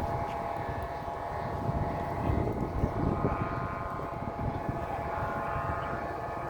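Many bamboo flutes on flying Vietnamese flute kites droning together as a steady chord of overlapping tones. Gusty wind buffets the microphone underneath, swelling a couple of seconds in.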